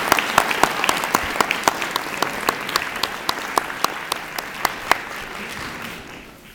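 Audience applauding, with individual sharp claps standing out above the crowd; the applause fades and dies away near the end.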